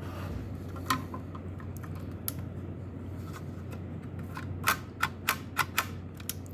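Hard clicks and taps from the computer module's internal parts being worked back into its case: two single clicks, then a quick run of five louder clicks near the end, over a steady low hum.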